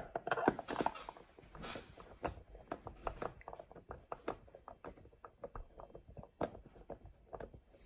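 Hand screwdriver turning screws into a plastic case: a run of small, irregular clicks and ticks, several a second.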